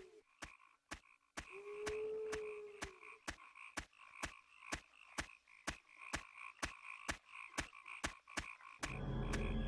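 Night-forest ambience of frogs croaking: a steady run of clicking croaks, a little under three a second, over a faint high chirping, with one long low held call from about a second and a half in. Music comes in near the end.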